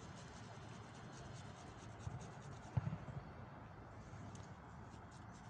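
Faint rubbing and scratching handling noise on a handheld phone's microphone over low outdoor rumble, with one soft bump a little under three seconds in.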